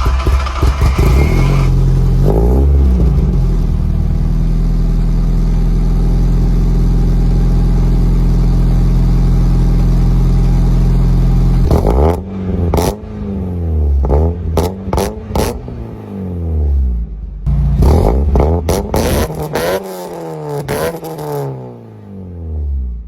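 NA Mazda Miata four-cylinder engine heard through an aftermarket cat-back exhaust, running steadily for about ten seconds. From about halfway it is revved in a series of quick throttle blips, each rising and falling in pitch.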